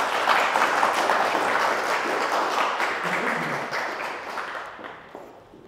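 Audience applause from a small group of listeners: dense clapping that tapers off and fades out near the end.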